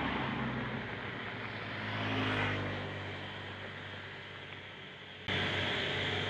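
A car passing by over a steady low street hum, loudest about two seconds in and then fading. A little after five seconds in, the sound cuts abruptly to a steady hiss and hum.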